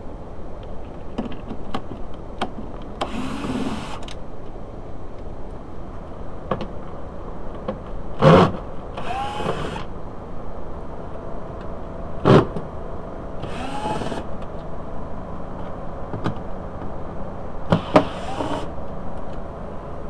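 Cordless drill/driver with a T30 Torx bit spinning out door-panel bolts in four short runs, each under a second, its motor pitch rising and falling. Loud sharp knocks come between the runs and near the end.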